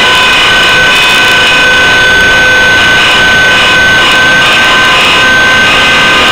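Align T-Rex 600 CF radio-controlled helicopter in flight, heard from a camera mounted on board: a loud, steady, high-pitched whine from the drive and rotor head over rushing noise.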